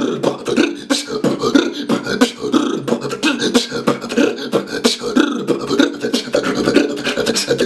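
Solo beatboxing: a fast, steady beat of mouth-made kick, snare and hi-hat sounds, with a hummed low tone held underneath.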